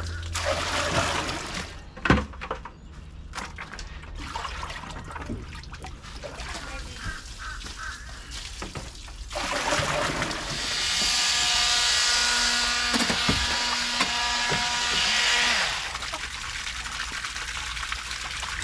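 Water running and splashing as pond water is transferred into a hot tub, louder and fuller from about ten to sixteen seconds in.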